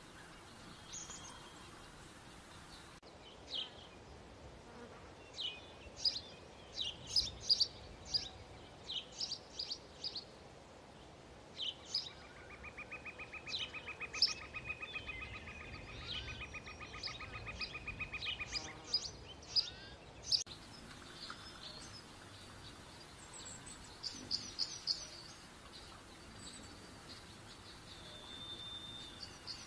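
Outdoor nature ambience of songbirds: scattered short, high chirps and calls throughout. In the middle, a long, rapid buzzing trill runs for about seven seconds.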